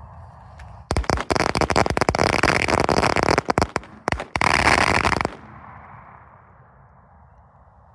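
A roll of crimped firecrackers, small and large mixed, going off: a rapid, dense string of bangs starting about a second in, a brief break near four seconds, then a final burst whose echo fades away.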